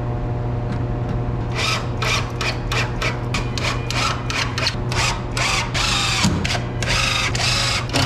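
Cordless drill driving screws into a particle-board stand in a run of short, irregular bursts, starting about a second and a half in and running longer near the end.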